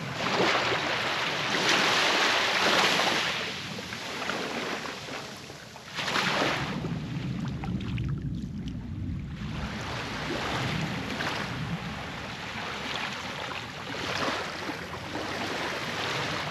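Ocean surf washing in long swells and fades, with wind buffeting the microphone.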